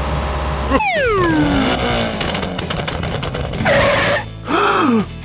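Cartoon vehicle sound effects: a low engine rumble that cuts off, then a long falling whistle-like glide, then two short cries near the end.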